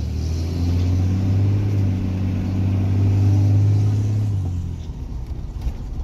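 Ram 2500's 6.7-litre Cummins turbo-diesel engine and exhaust heard from inside the cab with the rear window open: a deep, steady drone that dies away about four and a half seconds in as the truck slows.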